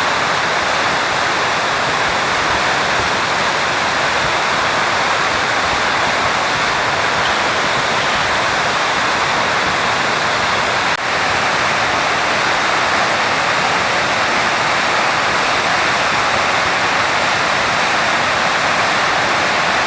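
River Nyamwamba in flood: fast water rushing in a steady, loud wash of noise, with a brief dip about halfway through.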